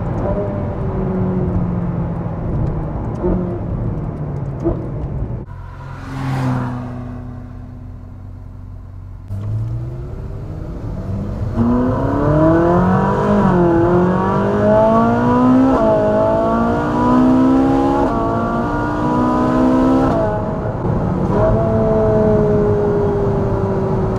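Ferrari 458 Spider's naturally aspirated V8, heard from inside the cabin. It cruises, drops to a quieter low tone about six seconds in, then accelerates hard from about ten seconds, its pitch climbing and falling back through several quick upshifts before it settles to a steady cruise near the end.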